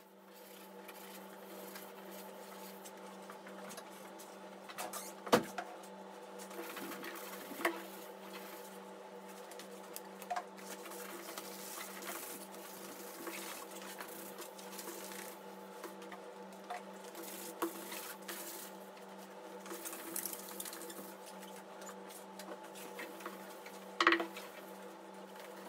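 Faint rubbing of wet sandpaper worked by hand along a surfboard's epoxy-coated rail, over a steady machine hum, with a few sharp knocks about five, eight and twenty-four seconds in.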